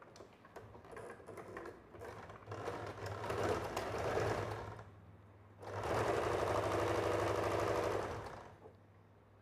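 Janome Allure electric sewing machine stitching a seam. It starts in short, uneven bursts that build up, pauses briefly, then runs steadily for about three seconds and stops near the end.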